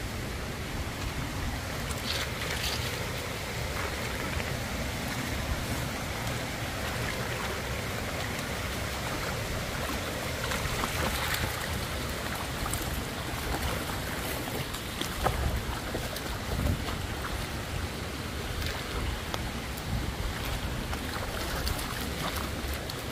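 Wind buffeting a phone microphone as a steady low rumble, with occasional rustles and crunches from feet on dry leaves and stones.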